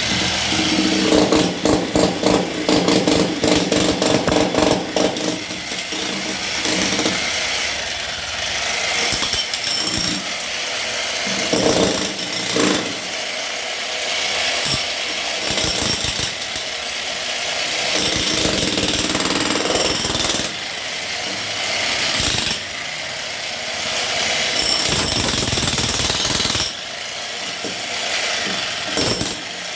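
Power hammer drill hammering into reinforced concrete (RCC) to break it up. It makes a loud, rapid, continuous hammering, with a few brief dips in loudness along the way.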